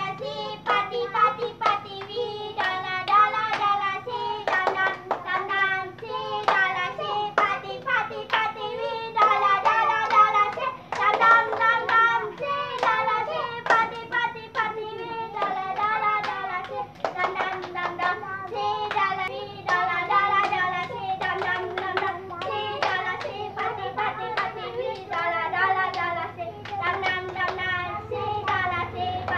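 Children singing a rhyme while clapping each other's hands in a hand-clapping game, the claps keeping a steady beat with the song.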